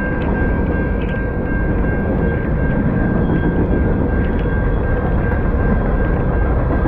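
Freight cars (centerbeam flatcars and covered hoppers) rolling past on the rails in a steady, dense rumble of wheels and car bodies, with a thin steady high tone running above it.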